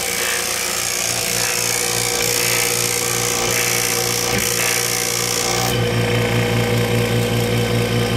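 Electric vacuum pump running steadily while it evacuates the vacuum former's air tank. About two-thirds of the way through, the airy hiss drops away and a lower hum comes forward as the vacuum builds toward the most the pump will pull.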